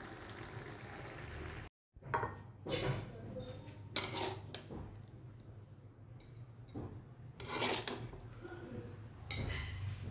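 Sauce simmering with a steady bubbling hiss in an aluminium wok. After a brief dropout, a metal utensil scrapes and clinks against the wok several separate times as the fish and vegetables are moved.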